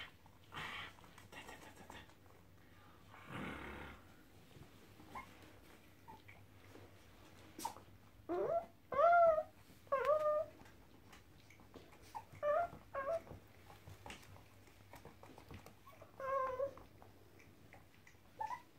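Bichon frise puppies yipping and whining during play: short, high-pitched calls that bend up in pitch, in a few clusters through the second half. A brief rustle comes early on.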